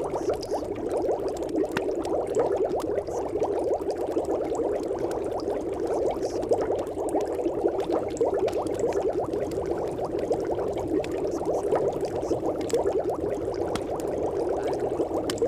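A steady, dense crackle of countless tiny clicks, dull and muffled in tone, running without a break.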